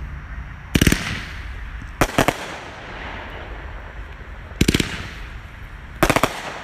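Small aerial fireworks bursting overhead: four volleys of sharp cracks, each a quick run of several pops, with echo trailing each.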